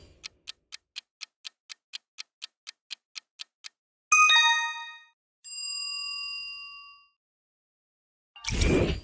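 Quiz-show countdown sound effect: a clock ticking steadily about four times a second. It is followed a little after four seconds in by a bright bell ding that rings out, then a second, held chime tone. A loud hit comes just before the end.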